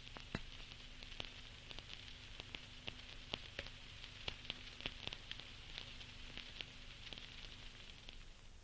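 Faint steady hiss with many irregular sharp clicks and crackles, over a low steady hum; the hiss fades near the end.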